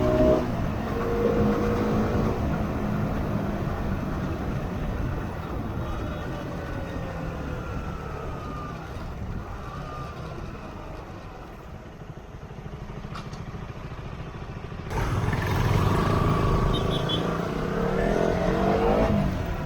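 Motorcycle riding with wind buffeting the action camera's microphone over the engine. The engine sound slowly eases off, then about fifteen seconds in grows suddenly louder as the motorcycle accelerates, its pitch rising.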